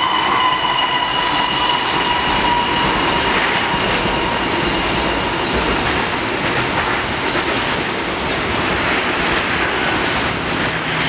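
Container freight train hauled by a CC 206 diesel-electric locomotive passing at speed, with a steady rush and clatter of wagon wheels over the rail. A faint high whine over it fades away during the first few seconds.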